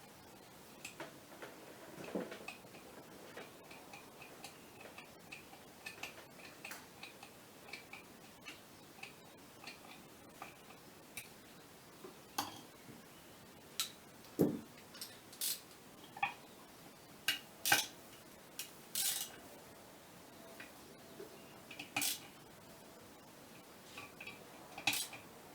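Light metallic clicks and taps of hand tools and bolts on a Scania clutch actuator's housing as its bolts are fitted. The clicks come small and fairly even at first, then sharper and louder in the second half, with a brief scrape.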